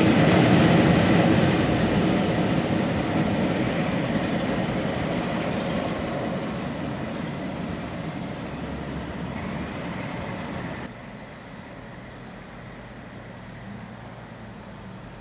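Diesel-hauled train passing, its locomotive engine and wheels fading steadily as it draws away, with a sudden drop in level about 11 seconds in.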